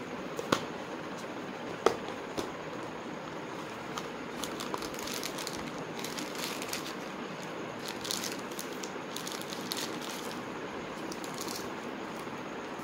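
Two sharp clicks near the start as a hard clamshell sunglasses case is handled and opened, then plastic wrapping crinkling on and off as the sunglasses are unwrapped, over a steady background hiss.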